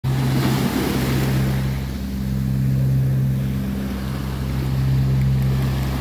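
Small sea waves washing in over sand and breaking around boulders in a steady surf hiss. A steady low hum runs underneath.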